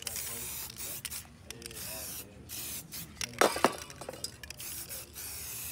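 Aerosol spray-paint can hissing as paint is sprayed over a stencil, in short bursts at first and a longer steady spray near the end. A brief loud burst of voices cuts in about three and a half seconds in.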